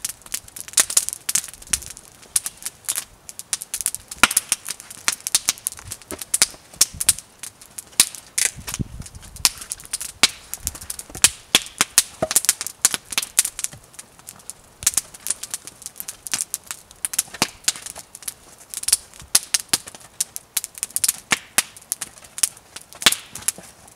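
Wood campfire crackling, with many sharp, irregular pops and snaps.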